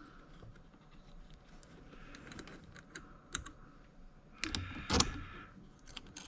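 Light metallic clicks and taps of a battery terminal's clamp hardware being fitted and tightened by hand, with a louder burst of clatter about five seconds in.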